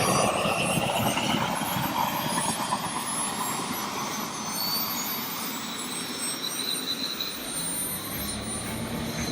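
Jet engine noise: a loud rushing with a whine that slides down in pitch over the first few seconds as it passes, slowly fading. About three quarters of the way in a low steady drone joins it.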